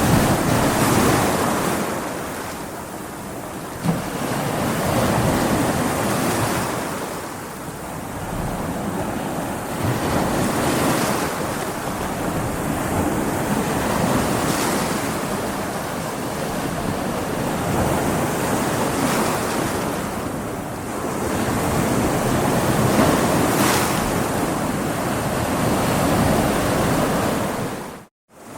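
Ocean waves breaking against rocks: a steady wash of surf that swells and ebbs every few seconds. The sound cuts out for a moment near the end.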